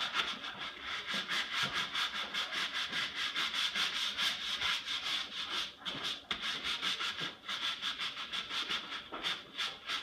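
Hand scrub brush scrubbing a tile floor in quick back-and-forth strokes, about five a second, with a short pause about six seconds in.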